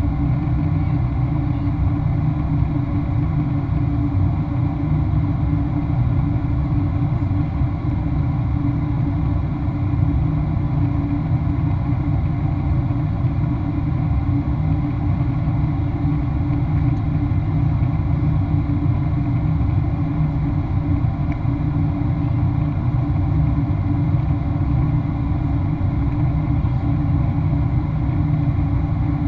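Steady cabin noise inside a Boeing 737-800 in flight: a low rumble from airflow and its CFM56-7B turbofan engines, with a steady hum over it.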